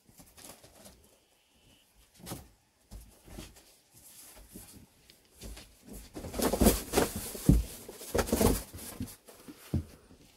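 Irregular rustling and scuffing close to the microphone, sparse at first and loudest between about six and nine seconds in.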